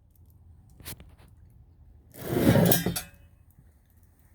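Extension cords being handled and hung on a metal bracket: a light metallic click about a second in, then a brief rustling scrape.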